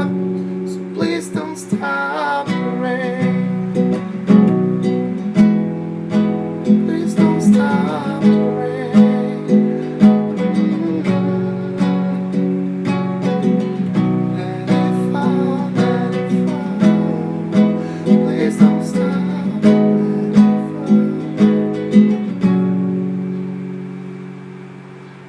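Acoustic guitar strummed in an instrumental passage with a steady rhythm of strokes. Near the end a last chord is left ringing and fades away.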